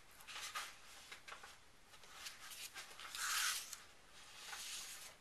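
Cardstock die-cut and foam adhesive pop dots being handled by hand: soft rustles and light clicks, with a louder papery scratch about three seconds in.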